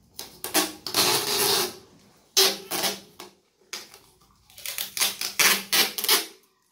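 Packing tape being pulled off its roll in several quick, crackling pulls and wrapped around the necks of two plastic water gallons joined mouth to mouth.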